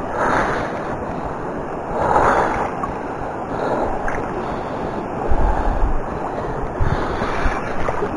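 River water rushing, with wind buffeting the microphone; the noise swells and eases every couple of seconds, with a low gusty rumble about five seconds in.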